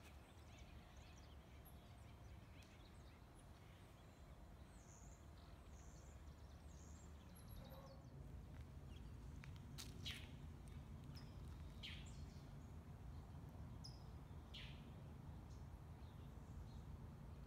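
Faint bird calls: a few short high chirps, then three sharp down-slurred chip notes a couple of seconds apart, over a low steady rumble.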